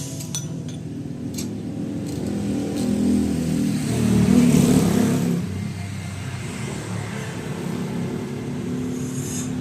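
Small underbone motorcycle engine running, revved up once about halfway through and then settling back to a steady run.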